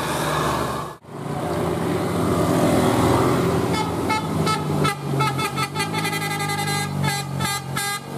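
Bus engine running, then from about four seconds in a telolet multi-tone air horn plays a fast tune of several stacked notes, pulsing rapidly on and off. The sound drops out sharply for a moment about a second in.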